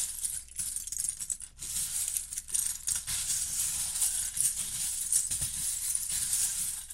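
Loose Lego plastic pieces rattling and clicking against one another in a steady shaking clatter.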